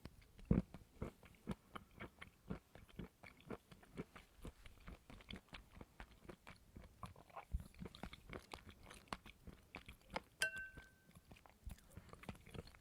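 Close-up chewing of coconut flesh: a run of crunching, squelching bites, several each second, with one brief squeak near the end.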